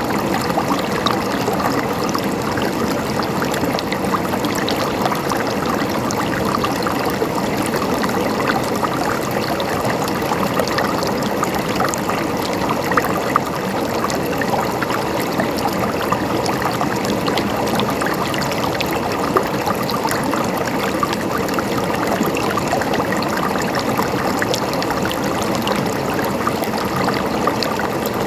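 A mountain stream running over rocks, a steady trickling and gurgling of water with small splashes.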